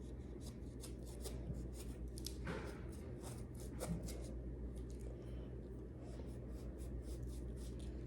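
A knife cutting and scraping at a baseball's leather cover: a run of short, irregular scratchy strokes, slow going because the blade is dull.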